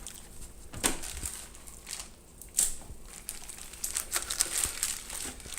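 Irregular crinkling and crackling with a few sharper knocks, the sound of something being handled by hand. No motor is running.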